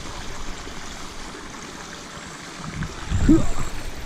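Steady rush of inflowing stream water, with wind buffeting the microphone in low gusts that ease off in the middle and return near the end. A brief vocal sound comes about three seconds in.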